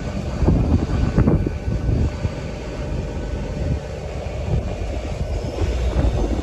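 A train running past, a steady low rumble with a few short knocks from the wheels.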